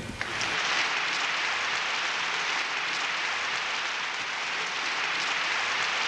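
Audience applauding, a steady even clatter of many hands clapping.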